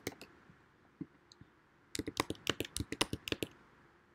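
Computer keyboard being typed on: a few keystrokes at the start, a single one about a second in, then a quick run of keystrokes from about two seconds in that stops about a second before the end.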